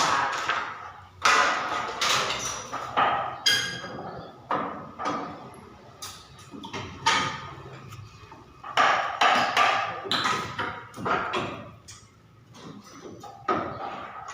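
Hammering: a series of sharp strikes at an irregular pace, each ringing out briefly before fading.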